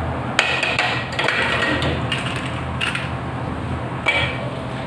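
A few sharp knocks and clacks of hard objects being handled, the loudest about half a second in and another near the end, over a steady low hum.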